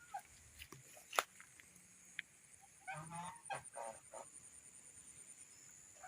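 A domestic goose honks once, briefly, about three seconds in, between a few sharp clicks, over a faint steady high whine.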